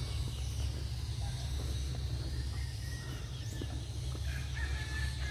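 Steady low wind rumble on the microphone, with faint bird chirps over it and a short thin whistle near the end.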